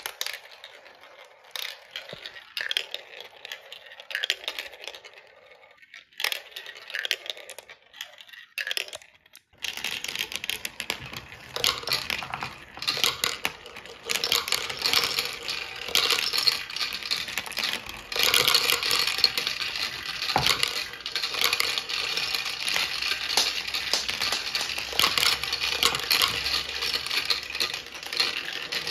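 Marbles rolling and clacking down a plastic marble run. Scattered clicks at first, then from about ten seconds in a continuous dense rattle of many marbles running through the tracks and funnels together.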